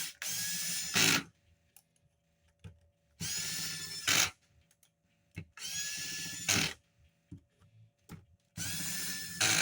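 A cordless drill/driver run in four short bursts about three seconds apart, each spinning up with a rising whine, holding steady for about a second and ending in a brief louder jolt as a screw is driven into the nail gun's housing.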